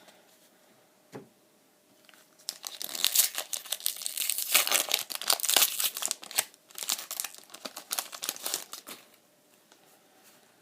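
Foil wrapper of a Pokémon booster pack being torn open and crinkled by hand: a dense crackle lasting about six seconds, starting a couple of seconds in, after a single soft tap.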